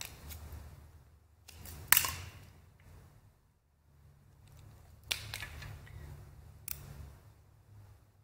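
Hands working vinyl rim tape onto a motorcycle wheel rim, peeling its backing paper: a sharp click about two seconds in, then rustling and two more, softer clicks.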